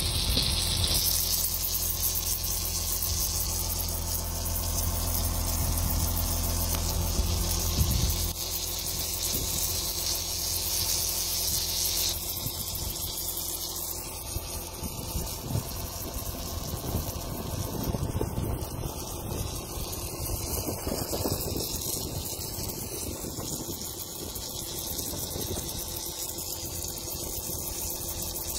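Excavator's diesel engine running steadily, with a hiss on top; the low rumble eases about eight seconds in.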